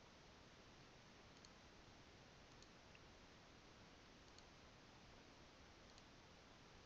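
Near silence with a few faint computer mouse clicks, a second or two apart.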